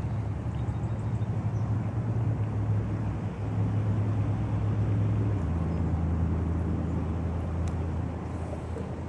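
A steady low motor hum that drops slightly in pitch about halfway through.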